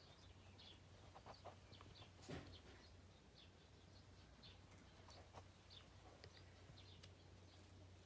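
Near silence: quiet outdoor ambience with faint, repeated high chirps and a low steady hum, and one brief soft knock about two seconds in.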